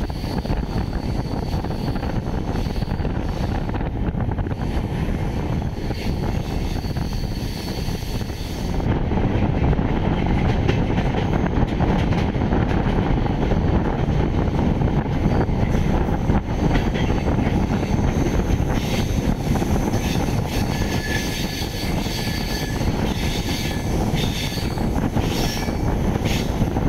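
Moving passenger train's running noise, a steady rumble and rush that gets louder about nine seconds in.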